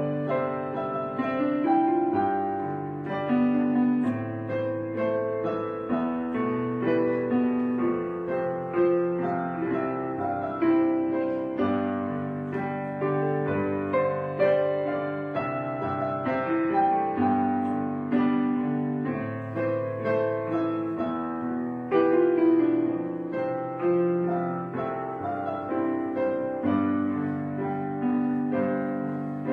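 Background piano music, slow notes and chords played throughout.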